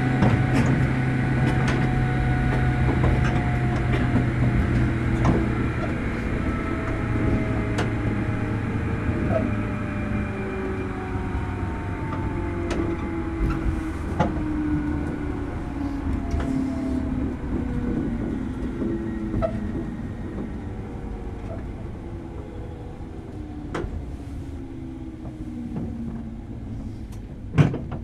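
JR Kyushu 103 series EMU heard from inside motor car MoHa 102-1510, slowing down: the whine of its traction motors and gears falls steadily in pitch and fades, with rail-joint clicks along the way and a sharp clack near the end as it comes to a stop.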